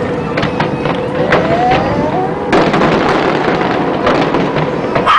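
Fireworks display: shells bursting and crackling in dense succession, with a rising whistle in the first half and a fresh wave of bursts about halfway through.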